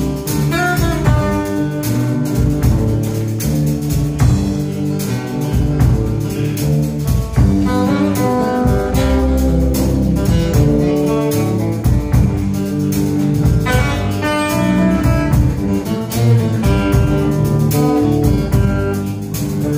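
Live jazz trio playing: electric bass guitar, drum kit and acoustic guitar together. The bass notes are the loudest part, under a melodic line with bent notes and steady drum and cymbal hits.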